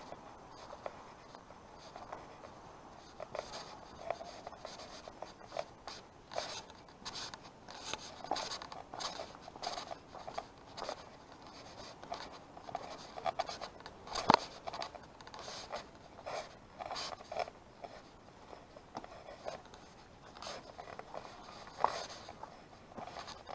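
Footsteps of a walker crunching on a path of grit and fallen leaves, about two steps a second, with one sharp, louder click about midway through.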